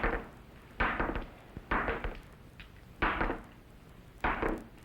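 A series of dull knocks, about one a second, each short with a brief tail.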